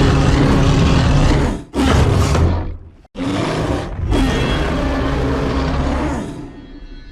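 Kong's sound-designed giant-ape roars and growls, 2021 Monsterverse version, played one after another. One long roar breaks off and a short growl follows. After a brief silence come two more roars, the last fading out near the end.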